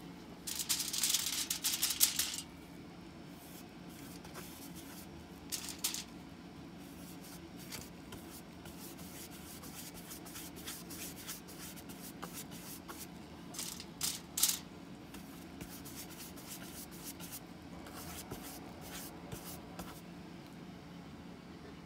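A brush rubbing and dabbing water-based dye stain onto bare birch wood, with scuffing and handling noises from gloved hands. The loudest scuffs come about a second in, around six seconds and around fourteen seconds, over a faint steady hum.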